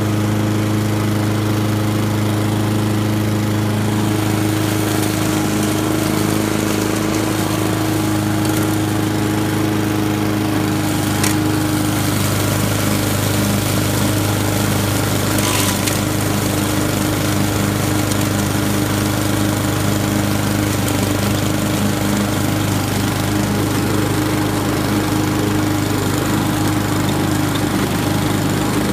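Honda walk-behind lawn mower engine running steadily at a constant speed while the mower cuts through fallen leaves and grass. Two brief ticks stand out, about eleven and fifteen seconds in.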